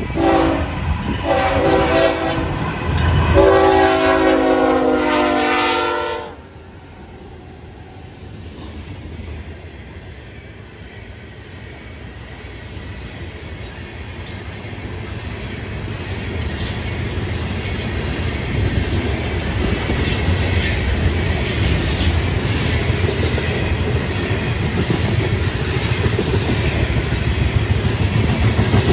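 Florida East Coast Railway freight locomotive's multi-chime air horn blowing for a grade crossing: a short blast, a longer one, then a long blast that cuts off about six seconds in. Then the rumble and clatter of loaded covered hoppers and rock gondolas rolling past, growing steadily louder, with wheels clicking on the rails.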